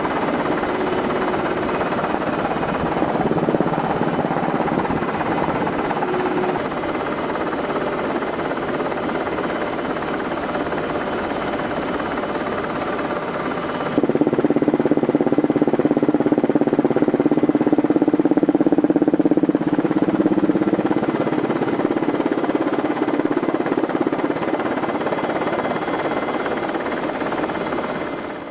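Steady drone of an aircraft in flight, heard from on board. About halfway through it jumps abruptly louder, with a deeper hum, and it fades out right at the end.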